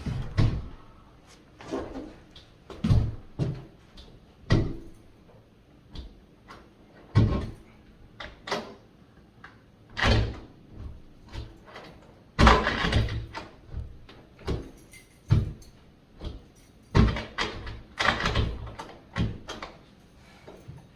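A door fitted with a newly installed lockset being worked: a long run of irregular clicks and knocks from the knob, latch and door as it is opened and closed again and again.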